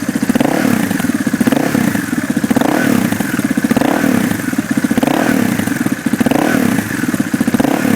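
KTM 690 SMC R's single-cylinder engine through a Mivv Suono exhaust with the dB eater fitted, revved in short blips about once a second, the pitch rising and falling each time.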